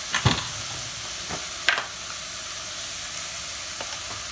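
Sweet potato leaves stir-frying with garlic in a large aluminium pot: a steady sizzle of hot oil, broken by a couple of sharp knocks about a quarter second in and again near the two-second mark.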